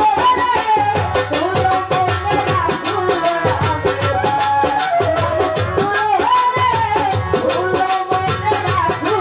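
Live Bengali baul folk song: a woman singing through a microphone, with bamboo flute and keyboard accompaniment over a steady percussion beat.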